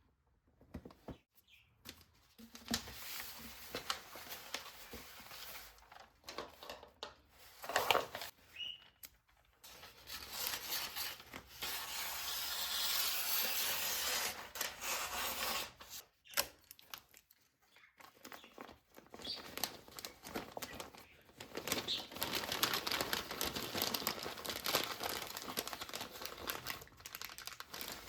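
Paper or plastic packaging being handled and crinkled, in irregular rustling stretches with small knocks; one louder knock comes about eight seconds in.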